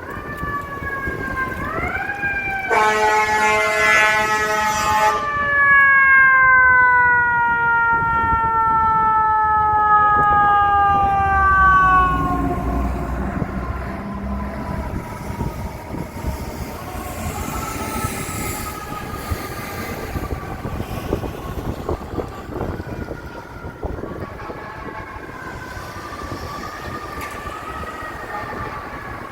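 Fire engine responding with siren and air horn. The siren rises, an air horn blasts for about two and a half seconds, then the siren winds slowly down in pitch. After a low rumble of the truck the siren rises again partway through and falls slowly toward the end.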